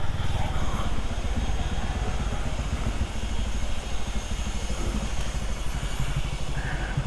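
Motorcycle engine running steadily at low revs as the bike creeps forward at walking pace.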